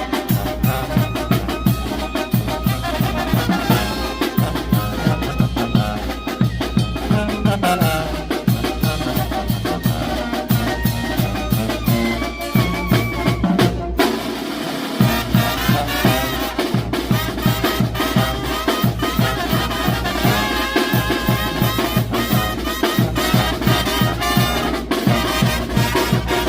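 Mexican banda brass band playing at a steady beat: trumpets and trombones carry the tune over drums and low brass. There is a brief break in the bass about halfway through.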